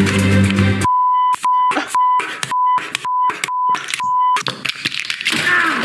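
Censor bleep: a steady beep tone broken into about seven short beeps in quick succession, bleeping out curse words. Music cuts off just before it.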